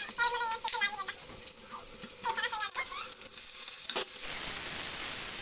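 Short high-pitched vocal calls sound in the background for the first few seconds. After a clink about four seconds in, food in hot oil in a cooking pan starts sizzling steadily.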